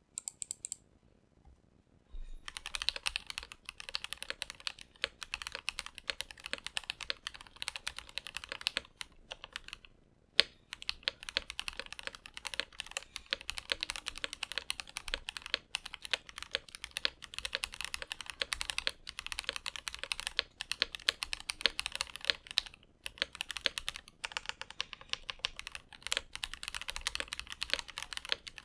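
Typing on a Rama U80-A mechanical keyboard with a brass plate, lubed Mode Designs Reflex switches and GMK ABS keycaps: fast runs of key clacks in bursts with short pauses, starting about two seconds in. One single louder key strike comes about ten seconds in.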